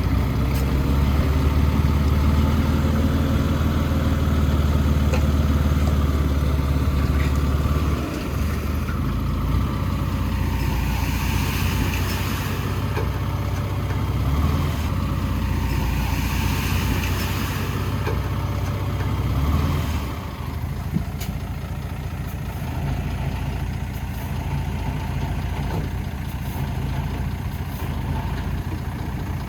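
Heavy earthmoving machine's diesel engine running. It is loudest for the first eight seconds, then runs lower, and drops again about twenty seconds in.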